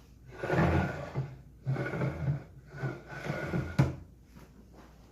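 Handling noises: a run of rubbing, rustling strokes with low thuds, and a sharp knock about four seconds in.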